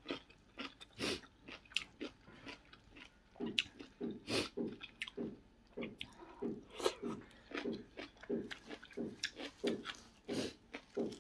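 A person chewing a mouthful of shredded papaya salad, close to the microphone: steady crunching chews, about two to three a second, with wet mouth clicks.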